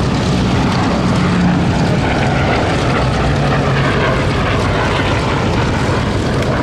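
Merlin-engined World War II propeller aircraft flying past with a loud, steady engine drone. Its low engine note drops a little in pitch about two seconds in.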